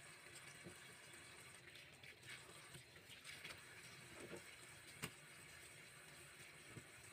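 Faint scraping strokes of a vegetable peeler shaving the skin off a white radish, with one sharp click about five seconds in.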